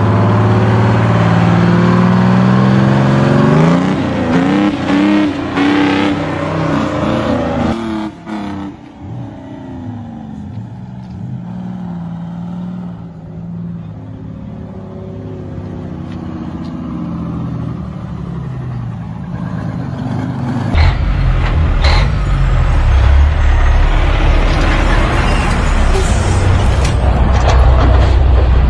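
Diesel semi-truck engine pulling away, its pitch rising and dropping back through gear changes, then settling to a quieter, lower drone. About twenty seconds in, a deep, loud, steady rumble of another big rig's engine takes over, with a couple of sharp clicks.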